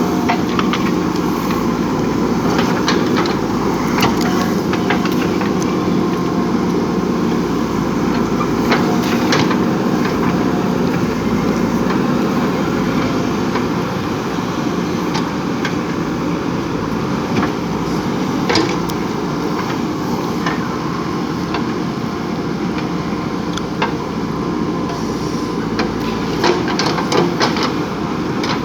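JCB 3DX backhoe loader's diesel engine running steadily under working load, with scattered sharp clanks and knocks throughout.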